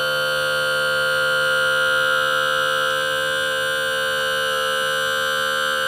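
Outboard motor's electric power trim-and-tilt unit running, a loud, steady whine of several fixed tones, as it tilts the leg and propeller up.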